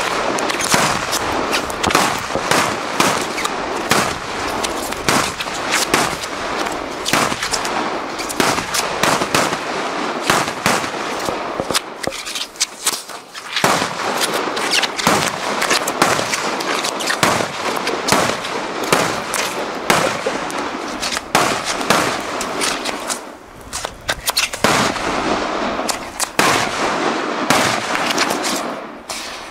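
A batteria napoletana, a long chain of firecrackers laid on the ground, going off in a rapid, unbroken string of bangs like machine-gun fire. It breaks off briefly about twelve seconds in, dips again about ten seconds later, and thins out near the end.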